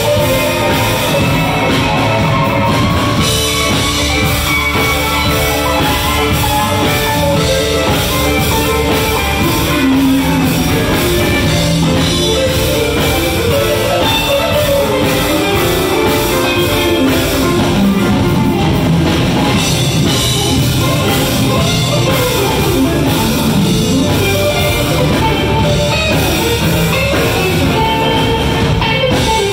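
A band jamming live: rock music with guitar and drum kit keeping a steady beat.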